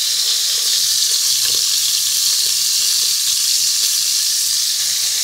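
Chunks of beef chuck searing in hot bacon grease: a steady, high-pitched sizzle as the meat browns in a batch spaced out so it sears rather than steams.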